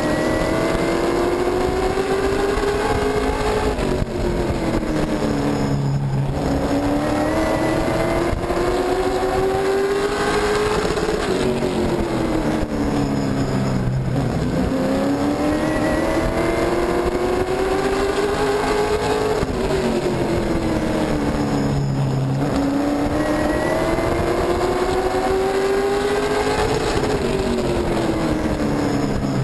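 Super truck's race engine heard from inside the cockpit at racing speed on a short oval. Its pitch climbs for several seconds down each straight, then falls as the throttle is lifted for each turn, about four times over.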